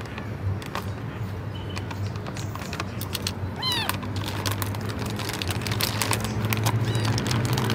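Plastic cat food bag crinkling and rustling as it is handled and opened, with a cat giving a short meow about four seconds in, over a steady low hum.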